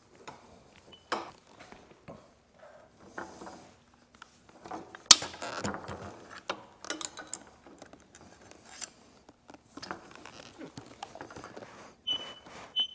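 Scattered clicks, knocks and rattles of tools being handled, with a sharp knock about five seconds in and a brief high squeak near the end.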